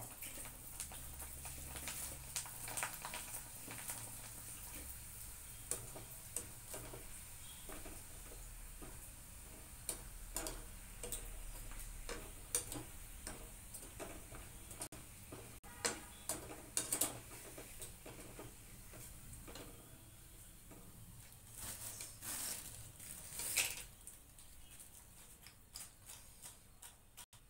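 Fryums deep-frying in hot oil in a small wok: a steady run of light crackles and ticks, with a few sharper clicks of a metal slotted spoon stirring and lifting them, clustered about halfway through and again near the end.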